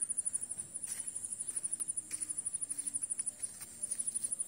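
An insect's high-pitched pulsing trill, about a dozen pulses a second, that breaks off briefly near the end before starting again.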